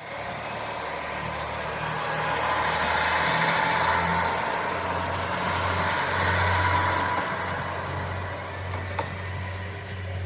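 A motor vehicle passing: a steady engine and road noise that builds for a few seconds and then fades, with a short click near the end.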